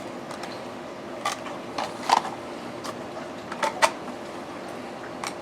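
Small plastic toy screws, nuts and tool pieces clicking and knocking together as they are handled and fitted, in short separate clicks about half a dozen times over a steady background hum.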